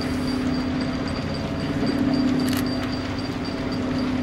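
Train running on the line: a steady hum with a regular high ticking about three or four times a second.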